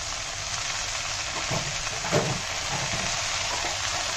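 Chopped radish greens frying in a little hot oil in a kadai, with a steady sizzling hiss.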